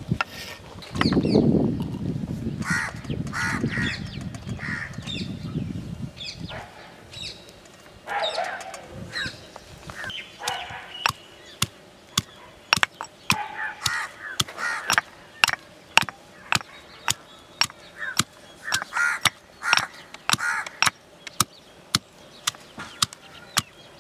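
Stone pestle pounding peeled garlic cloves in a stone mortar, with sharp strikes about one to two a second through the second half. Crows caw at intervals, and a low rushing noise fills the first few seconds.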